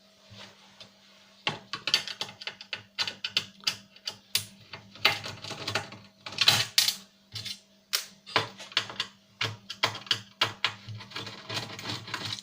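Parts of a DVD player being handled and taken apart by hand: a fast, irregular run of clicks and clacks of plastic and metal, starting about a second and a half in, over a faint steady hum.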